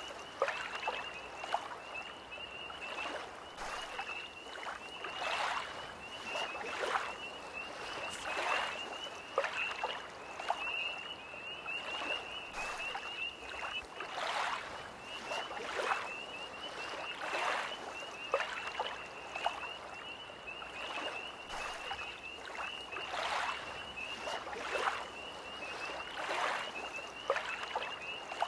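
Small lake waves lapping and splashing every second or so, under a continuous high-pitched trill of tree frogs that drops out briefly about halfway through.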